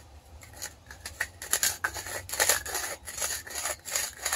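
Small hand reamer scraping the inside edge of a copper pipe end, deburring it before it is swaged: a rapid run of short metallic scraping strokes, about four a second, faint at first and louder from about a second and a half in.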